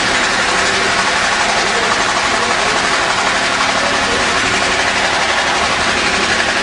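Loud, steady rushing noise with no distinct events.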